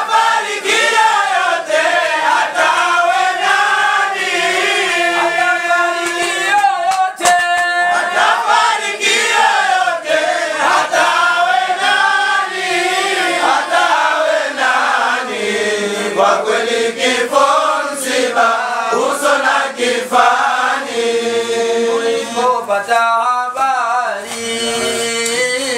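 A group of men chanting a dhikr (Islamic devotional chant) together, their voices rising and falling in a slow melody.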